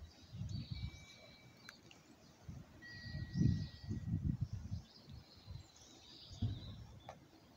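Outdoor ambience of birds chirping and calling, with a couple of short high whistled notes, over irregular low rumbles that swell strongest about halfway through.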